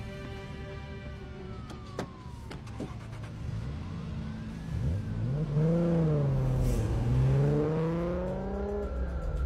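Toyota Supra sports-car engine revving hard and pulling away, its pitch rising, dipping and rising again as it accelerates, loudest in the second half. Police sirens wail in the background, and there is a sharp click about two seconds in.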